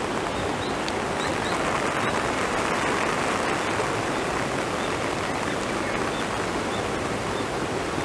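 Steady rush of running water, an even, unbroken hiss.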